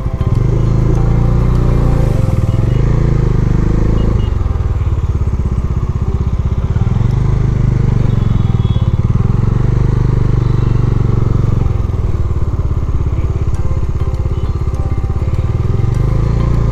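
Motorcycle engine running while being ridden, its note rising and falling several times with throttle and gear changes.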